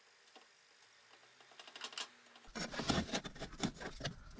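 Near silence with a few faint taps, then from about two and a half seconds in a busy run of small clicks, taps and scrapes as a steel rule is handled and held against plasterboard boxing for marking out.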